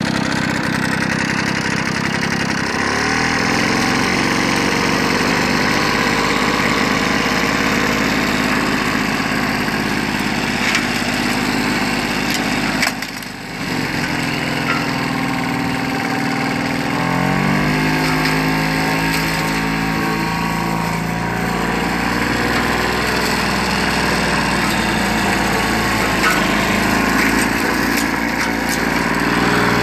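Victa 160cc two-stroke lawnmower engine running steadily while mowing grass. About halfway through it briefly drops in loudness, and a few seconds later its pitch climbs back up.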